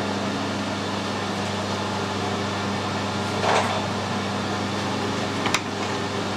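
Steady machine hum in a machine shop. A short rustling scrape comes about three and a half seconds in, and a sharp click about five and a half seconds in.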